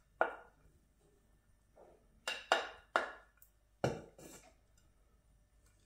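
A plastic slotted spatula knocking and scraping against a ceramic plate and a metal pot while serving rice: about six short clacks, most of them bunched together in the middle.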